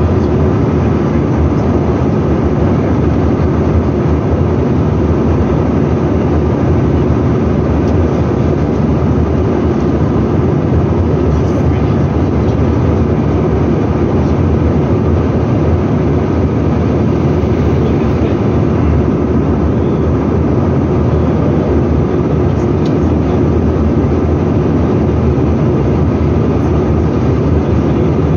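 Steady cabin noise inside a Bombardier CRJ900 in flight: the rush of air past the fuselage and the drone of its rear-mounted turbofan engines, deep and even.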